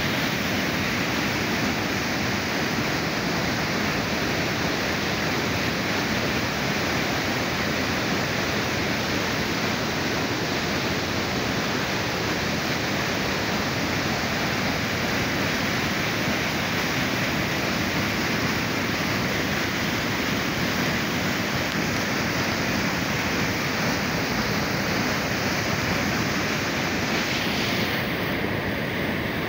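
White water rushing and churning down a stepped concrete channel: a steady, loud rush of water without a break, its tone shifting slightly near the end.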